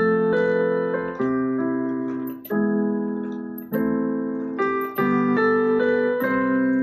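Background music: a piano-like keyboard playing sustained chords that change about once a second.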